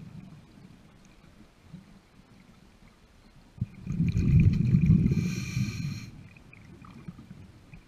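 Scuba regulator breathing underwater: a loud, low bubbling rumble of an exhale lasting about two seconds from about halfway through, with the regulator's whistling hiss of an inhale near its end. A single knock just before the rumble starts.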